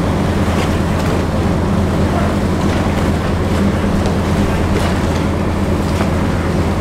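Moored ferry's engines running with a steady low drone. A few faint knocks sound over it.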